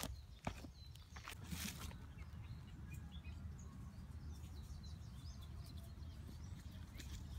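A few footsteps on the leaf-littered trail in the first two seconds, then a steady low outdoor rumble with faint bird chirps.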